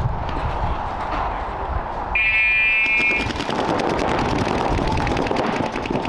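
A game buzzer sounds for about a second just after two seconds in, then paintball markers fire rapid strings of shots.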